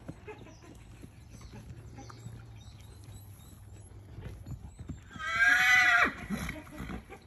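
A horse whinnying once, about five seconds in: a loud, wavering call of about a second that drops low at the end. Before it there are only faint scattered ticks and rustling.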